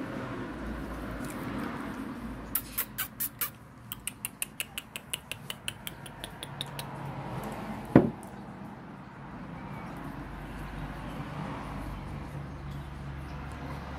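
Quick runs of sharp, light clicks, about five a second, then a single loud knock about eight seconds in.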